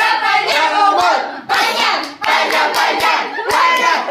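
A group clapping in time, about two claps a second, with several voices singing and calling out over the claps.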